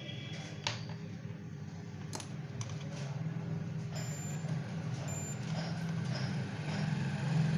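Light clicks and clinks of multimeter probes being handled and touched onto a freshly soldered headphone joint, over a steady low hum.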